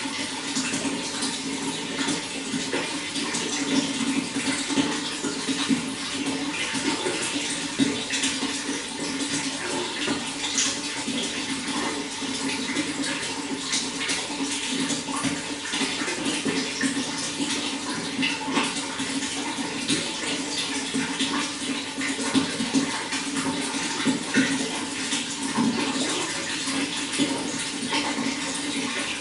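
Water flowing and splashing steadily, with many small splashes throughout.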